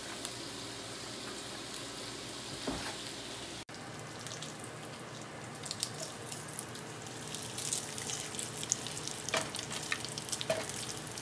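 Bacon frying in a nonstick skillet: a steady sizzle that, about a third of the way in, turns to a closer crackling sizzle full of sharp pops, with a few louder clicks near the end.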